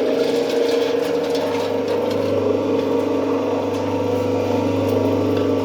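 Five-inch soap plodder running with a steady mechanical hum; a deeper hum joins about a second and a half in.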